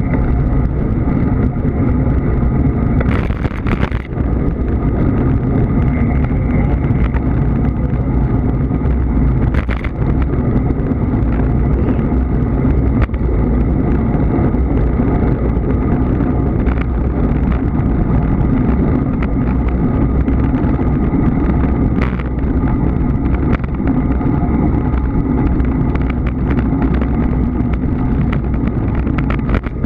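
Steady wind and road rumble on the microphone of a camera moving along with a bicycle road race, with a few sharp knocks, most likely bumps in the road, about three, ten and twenty-two seconds in.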